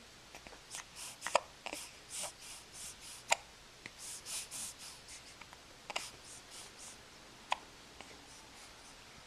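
Repeated hiccups: four sharp, short hiccups roughly two seconds apart, with quick soft breaths between them.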